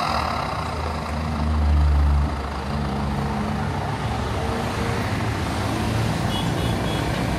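A van's engine running at idle through its exhaust, swelling louder for about a second just after one second in, then settling back to a steady idle.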